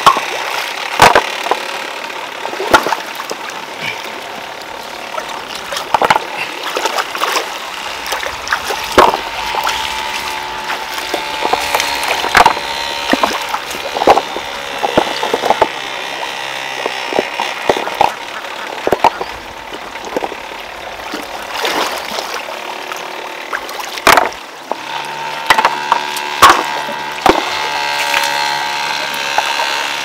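Stones knocking and clacking together in irregular sharp hits, sometimes several in quick succession. A low, steady machine hum comes and goes underneath.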